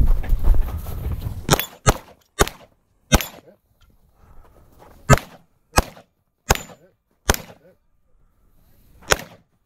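Handgun firing at a shooting stage: nine sharp shots, four in quick succession, a pause, four more evenly spaced about two-thirds of a second apart, then a last one near the end. A loud rumbling noise fills the first second and a half before the shooting starts.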